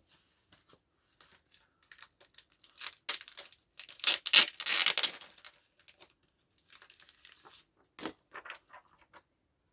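Comic books being handled: rustling and crinkling, loudest and densest about four to five seconds in, with a brief sharp snap about eight seconds in.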